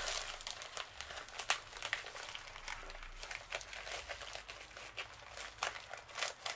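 Plastic mailer envelope crinkling as it is handled and opened: a run of irregular crackles.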